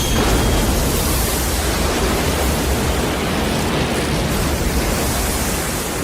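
A steady, loud rushing noise with a deep rumble underneath, even and unbroken.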